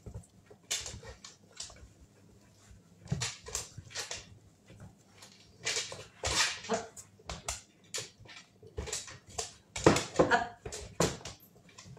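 A Glen of Imaal Terrier giving short whimpers, the loudest about ten seconds in, among scattered light taps and clicks.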